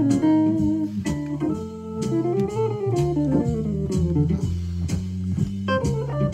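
Jazz solo played on an Akai EWI electronic wind instrument over an organ-trio backing track with walking bass and drums. About two seconds in, the lead line runs up and back down in a quick arc.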